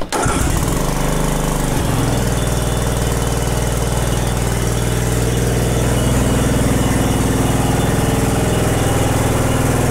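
Troy-Bilt TB30R riding mower's engine running steadily. A deeper note joins about two seconds in, and it grows a little louder later on.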